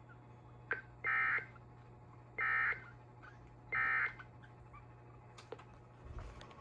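Emergency Alert System end-of-message tones: three short bursts of data warble, each under half a second and about 1.3 s apart, marking the end of the severe thunderstorm warning.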